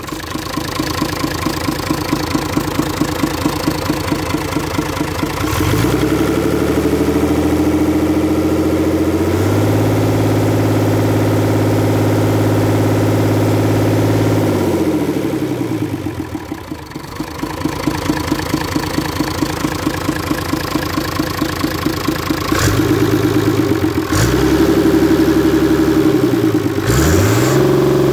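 Perkins 6.372 six-cylinder diesel engine test running. It idles, is revved up about six seconds in, held at high revs for several seconds and let fall back to idle, then revved up again a few times near the end.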